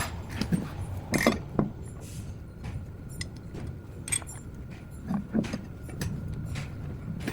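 Scattered light clinks and knocks of hand work on a handcycle wheel as a new tire is fitted, over a steady low background rumble.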